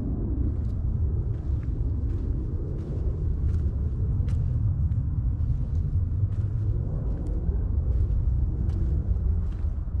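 Footsteps crunching on a sandy trail strewn with dry leaves, an uneven tread of soft crisp steps about once a second, over a steady low rumble that is the loudest sound.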